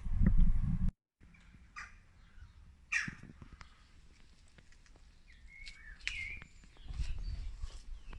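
A loud low rumble that cuts off sharply about a second in, followed by quiet outdoor background with scattered bird calls and chirps.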